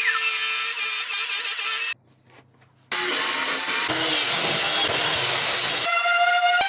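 Power tools working wood in short cut-together clips, with about a second of near silence two seconds in. Near the end a steady high-pitched whine sets in.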